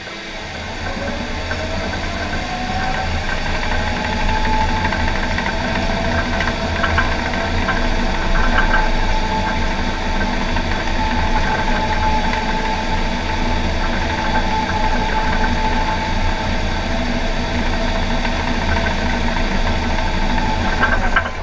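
A John Deere 750K LGP crawler dozer's diesel engine and drivetrain running steadily under load as the dozer pushes dirt with its blade. A whine rises in pitch over the first few seconds, then holds steady.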